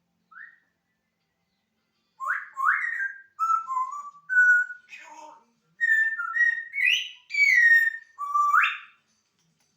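African grey parrot whistling: a single short rising note, then a run of about a dozen quick whistled notes, several of them swooping upward in pitch.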